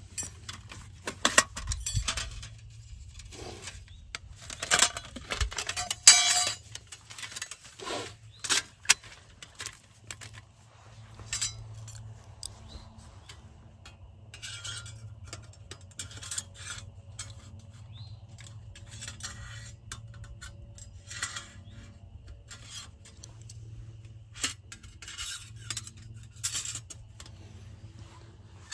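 Camp gear and packaged food being handled by hand: irregular clinks, knocks and crinkles, busiest in the first ten seconds, then sparser.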